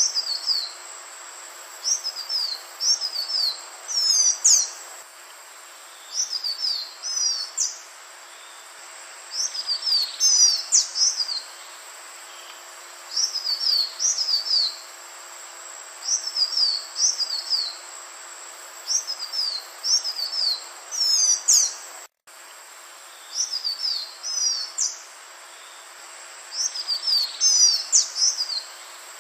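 Green iora singing: short phrases of two to four high, quick whistled notes, each slurring downward, repeated every two to three seconds over a steady background hiss.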